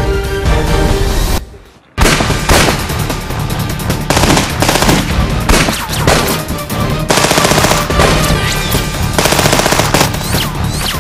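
Rapid pistol gunfire over an action music score. The music drops out briefly, then the shooting starts about two seconds in and keeps going, with dense volleys of quick shots.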